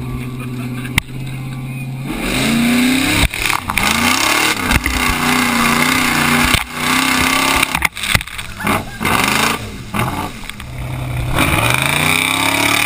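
Chevy Blazer engine idling steadily, then revving hard in repeated rising surges as the truck churns through swamp mud and brush, with a noisy wash of spraying mud and water and scattered knocks.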